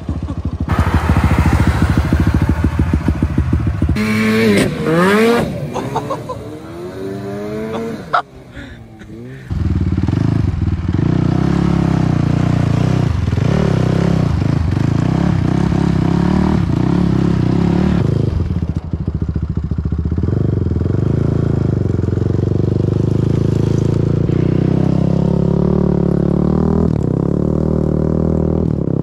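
A small engine buzzing at high revs, then sweeping up and down in pitch as it revs. After a break about eight seconds in, a Honda TRX sport quad's engine runs on, its pitch rising and falling now and then as it is ridden.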